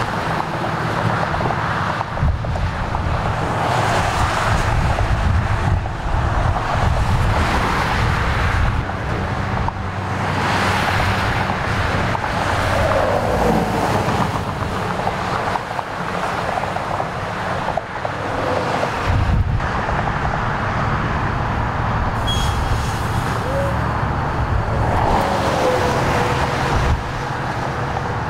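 Interstate traffic passing close by: cars and trucks going past one after another, a steady rush of tyre and engine noise with a low rumble, swelling and fading as each vehicle goes by.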